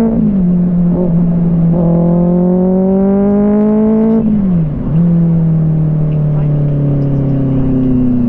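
Motorcycle engine pulling up through the gears. The pitch climbs steadily, dips sharply at an upshift just after the start and again about four seconds in, then holds nearly steady while cruising.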